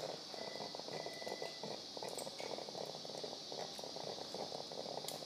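Low-level operating-room background: a steady hiss with a faint crackling underneath, and a thin, steady tone for about a second near the start.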